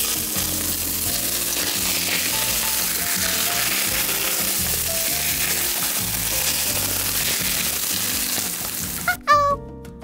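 Hot oil poured from a frying pan over chopped salted chilies on a steamed fish head, sizzling loudly and evenly, stopping abruptly about nine seconds in. A short, bright rising tone follows just after.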